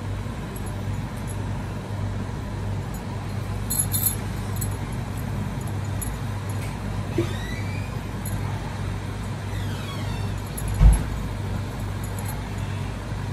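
Steady low hum and rumble, with a few light clinks about four seconds in and a single soft thump near the end, as momos are set into a stainless-steel steamer tray.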